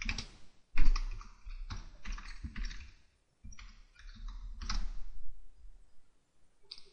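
Computer keyboard typing: an uneven run of keystrokes with a short pause about three seconds in, thinning out near the end.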